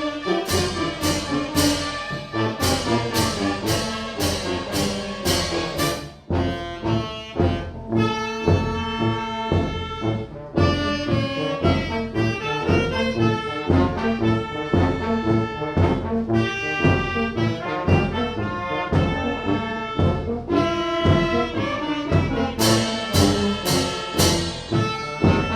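Brass band music: trombones and trumpets playing a tune over a steady percussion beat.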